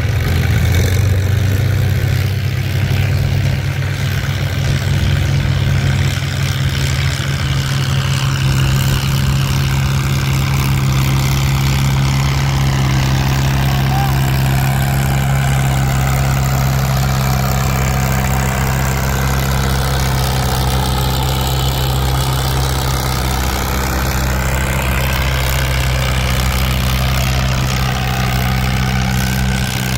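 Antique farm tractor engine idling steadily close by, a low, even drone that neither revs up nor dies down.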